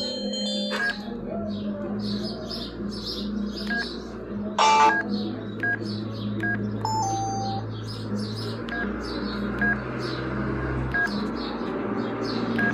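LG MG185 mobile phone's keypad beeping as buttons are pressed: short single beeps at irregular intervals. There is a brief louder electronic tone about a third of the way in and a short lower two-note tone a little later.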